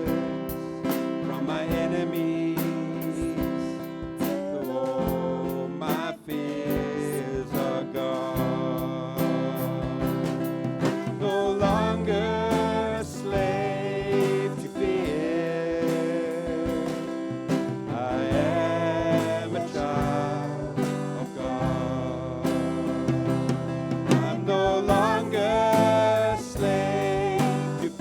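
Church worship band playing an upbeat praise song with a steady drum beat.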